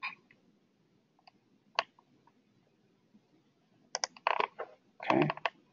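Computer keyboard and mouse clicks: a few isolated clicks, then a quick run of keystrokes about four seconds in, as a rotation angle is entered.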